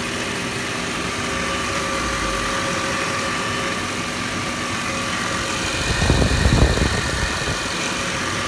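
2006 Audi A8's 4.2-litre V8 idling steadily, heard from under the car. A louder low rumble comes in briefly about six seconds in.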